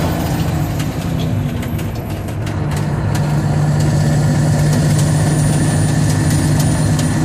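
Mack R model truck heard from inside the cab while driving on a gravel road: the engine runs steadily under load with road noise. It eases off briefly about a second in, then comes back stronger and steady, with light rattling clicks in the cab.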